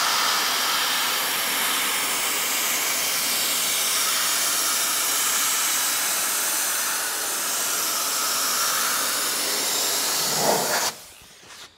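Steady hiss of compressed air from an APP pneumatic cartridge gun spraying adhesive onto a car's sill. The hiss cuts off about a second before the end, as the trigger is released.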